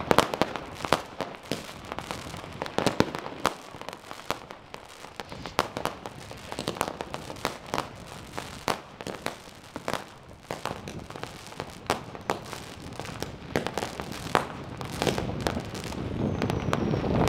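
Fireworks and firecrackers going off all around: a continuous, irregular series of sharp bangs and pops, several a second at times, some much louder than the rest.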